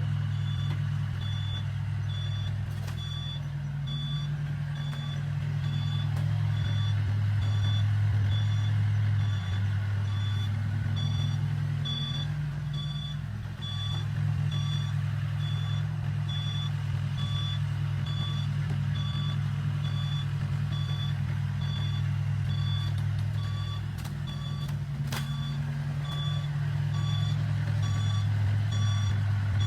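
Dump truck's reversing alarm beeping at an even pace, a little over once a second, over the steady low running of a heavy engine.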